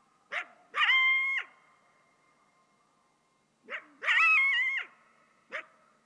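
Coyote barking and howling: a sharp bark, each of the first two followed by a short high-pitched howl, the second howl wavering, then a lone bark near the end.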